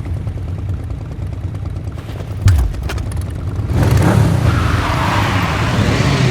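Sound-designed motorcycle engine: a low idling rumble with a single hit about two and a half seconds in, then about four seconds in the engine revs up loudly, its pitch rising and falling.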